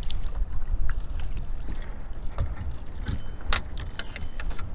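Low, steady rumble of wind on the microphone while out on a kayak, with several sharp clicks and knocks from handling gear and a freshly caught fish; the loudest knock comes about three and a half seconds in.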